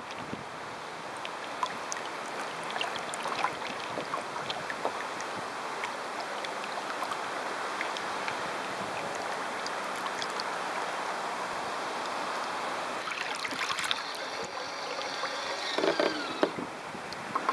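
Water rushing and splashing along the hull of a radio-controlled sailing yacht, heard from a camera on its deck, with scattered small splashes and ticks. A short pitched whine sounds about three seconds before the end.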